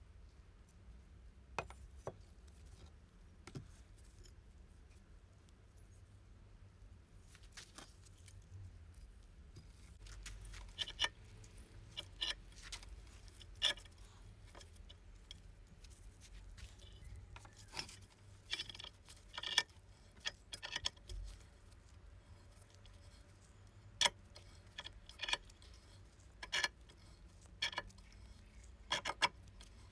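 Small metal parts and tools clinking and tapping as they are handled on a workbench. The knocks come sparse and irregular, a few at first and more often and louder after about ten seconds.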